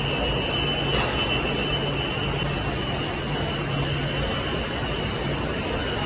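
Glass tempering furnace's blower running: a steady rushing air noise with a low hum and a faint high whine.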